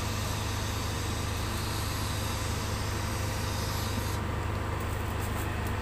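TIG welding arc burning with a steady hiss over a constant low hum; the high hiss drops away about four seconds in as the arc is broken.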